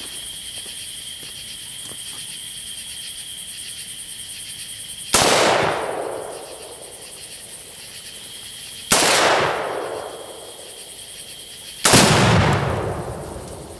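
Three loud blasts, about four and then three seconds apart, from AR-15 rifle shots at tannerite targets with the tannerite detonating. Each blast trails off in a long rolling echo, and the third is the loudest. A steady chorus of crickets chirps underneath throughout.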